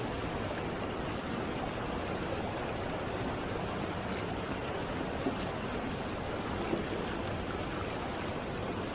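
Steady rushing of flowing water from a mountain stream, an even hiss with no breaks.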